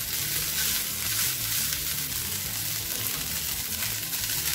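Fried rice sizzling steadily in a hot nonstick frying pan.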